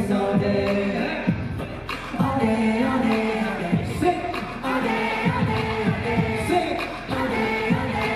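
Live male vocal singing into a handheld microphone over a loud hip-hop backing track with a steady beat, heard through a concert sound system.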